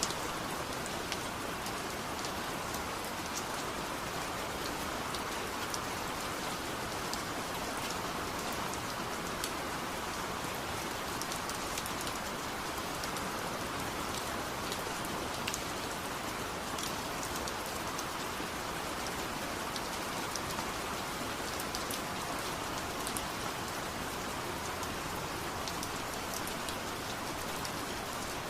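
Steady rain falling, an even hiss with scattered sharp drop ticks on hard surfaces.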